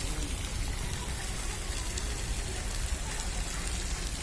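Steady rushing noise with a heavy low rumble, level throughout, with no distinct calls or knocks standing out.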